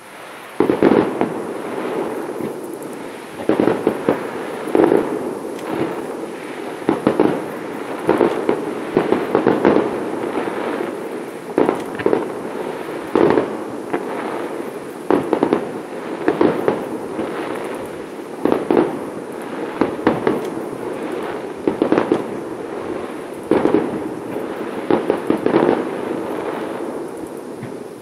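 Fireworks display: aerial shells bursting in quick succession, a sharp bang every second or two over a continuous rolling rumble, starting about half a second in.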